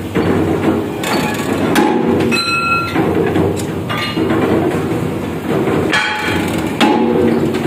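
Heavy workshop press running steadily while a mild-steel truck rim plate is handled at it, with irregular clanks and knocks of steel on steel. One knock, about two and a half seconds in, leaves the plate ringing briefly like a bell.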